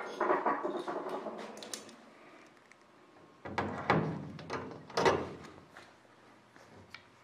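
Hand clatter of metal tools on thin aluminium sheet: clamps and clecos being handled against the aircraft skin, in two bouts of rattling and knocks, the first lasting about two seconds and the second coming about three and a half seconds in.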